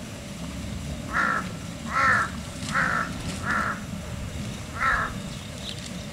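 A crow cawing five times in short, harsh calls, spaced roughly a second apart, over a steady low outdoor background rumble.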